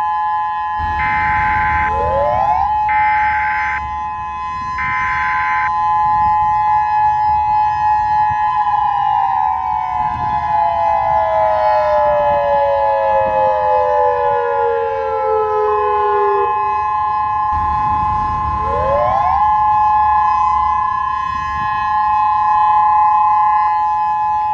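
Emergency Alert System signalling: the two-tone attention signal (853 Hz and 960 Hz) held steady throughout. Three short bursts of SAME data-header screech come in the first few seconds. Siren-like tones glide up and down over the tones.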